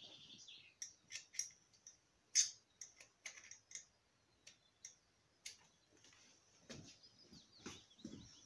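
Faint scattered clicks and light taps, the sharpest about two and a half seconds in, with birds chirping in the background.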